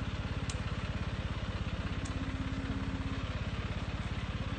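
Engine of a Kadıoğlu Vibrope EKO rope-type tree shaker running steadily with a fast, even pulsing beat, driving the rope that shakes a walnut tree.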